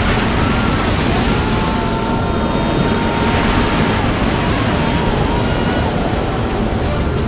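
Rushing surge of flood water, a steady dense wash of noise, with faint wavering high tones over it.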